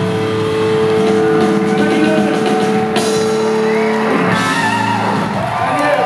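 Live rock band with electric guitar, keyboards and drums holding a sustained chord, with a cymbal-like crash about three seconds in. The held chord breaks off about four seconds in, and cheering voices with rising and falling pitches follow.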